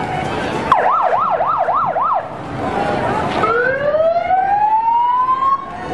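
Emergency vehicle siren sounded in short bursts: a fast up-and-down yelp of about five sweeps, then after a pause a single long rising wail that cuts off suddenly.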